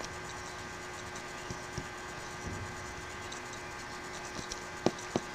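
Steady electrical hum with faint room noise, and two short clicks near the end.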